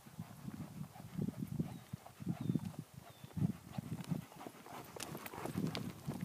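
Horse loping on soft sand and dirt: dull, muffled hoofbeats falling in groups at roughly one stride a second.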